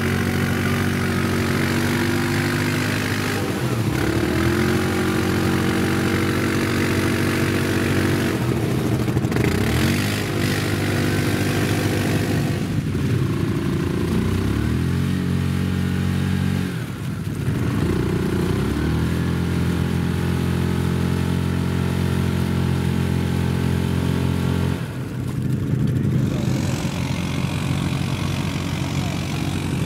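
ATV engine held at high revs, the throttle let off and opened again about five times, so the pitch dips and climbs back each time.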